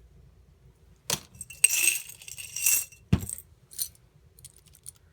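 Small buttons, beads and costume-jewelry pieces clinking and jingling as they are picked through, with a ringing metallic jingle between about one and three seconds in, and a single dull knock just after.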